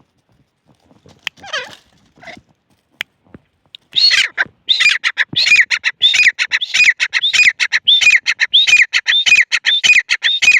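Francolin (teetar) calling: a few faint calls, then about four seconds in a loud, rapid run of repeated shrill notes, each rising and falling.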